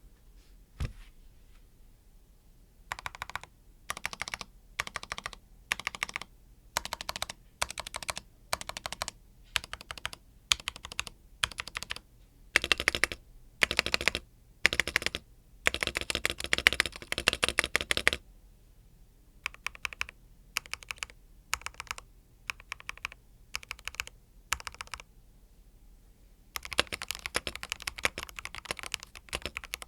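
Mechanical keyboard (Rakk Hanan with Akko CS Crystal switches and stock keycaps) being typed on. Short bursts of a few keystrokes come about once a second, with longer runs of fast typing in the middle, and steady fast typing near the end.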